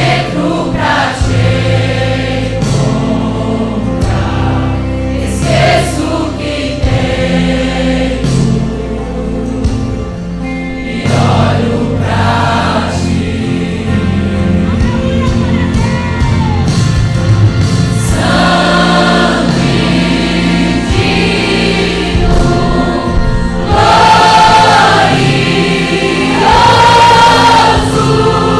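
Gospel worship music: a choir singing over a band, swelling louder and fuller near the end.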